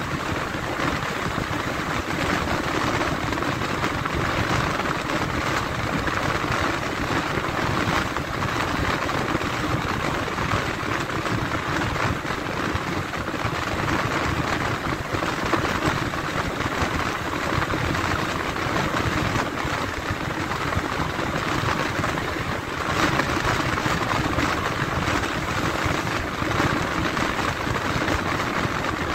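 Steady running noise of a moving vehicle, with no distinct events.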